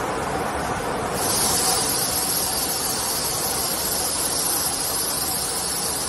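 Velcro tape starching and finishing machine running with a steady mechanical noise; about a second in, a loud high hiss starts and holds steady over it.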